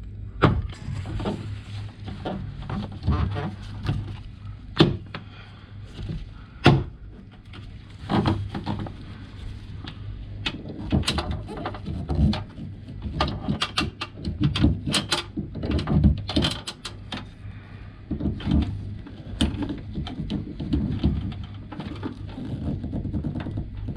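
Scattered clicks and knocks of a flat screwdriver and hands working on the cable clip of a Lexus NX300h smart door handle, prying the clip and pulling the cable out, over a steady low hum.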